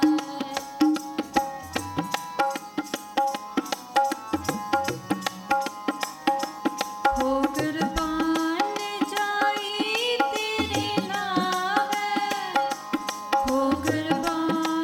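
Sikh keertan: a Yamuna harmonium holds steady chords while tabla plays a quick run of strokes. From about seven seconds in, a woman's voice sings a melody with it.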